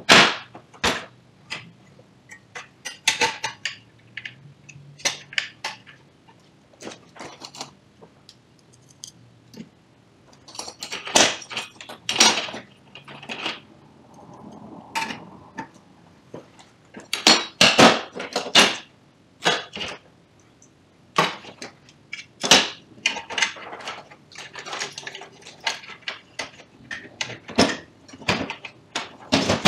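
Irregular clicks, clacks and knocks of hard plastic and metal parts being handled, as a copier's fixing assembly and hand tools are worked with by hand. The clatter comes in bunches, densest about a third of the way in and again past the middle, with quiet stretches between.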